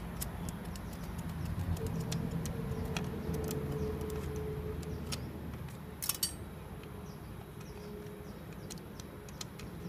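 Faint scattered clicks and scrapes of a thin metal tool poking through thick, water-contaminated gear-oil sludge in a Yamaha Mio scooter's opened final-drive case, over a low steady hum; the sharpest click comes about six seconds in.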